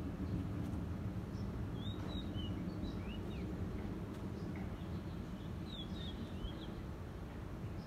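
Distant Airbus A320-214's CFM56 jet engines giving a low, steady rumble that slowly fades as the aircraft moves away. Small birds chirp in short up-and-down notes every second or two over it.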